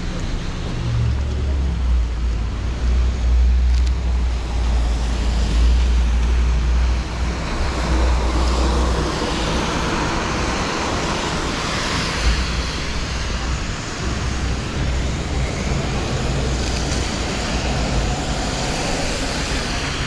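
Street traffic on rain-wet pavement. A low engine rumble runs through the first several seconds, then tyres hiss on the wet road as vehicles pass, loudest around the middle.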